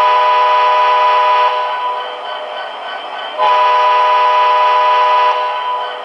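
Digital sound system of an MTH Premier PS3 O-scale model diesel locomotive sounding two long chord-horn blasts, the first at the start and the second about three and a half seconds in. A steady diesel engine rumble from the same sound system runs underneath.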